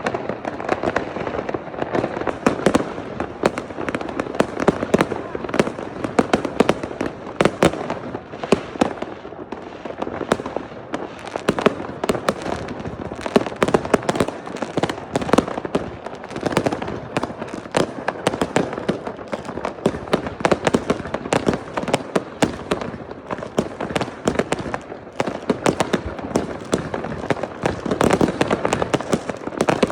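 Continuous barrage of consumer fireworks and firecrackers going off all around: a dense, unbroken stream of bangs, pops and crackling from many launch points at once.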